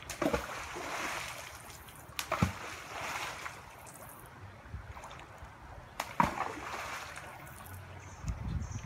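Shallow river water splashing and sloshing as a person wades and works their hands in it among the stones, with three sharp splashes: about a quarter second in, two and a half seconds in, and six seconds in.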